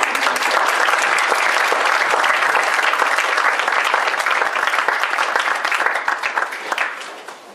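Audience applauding, a dense, steady clatter of many hands clapping that tapers off near the end.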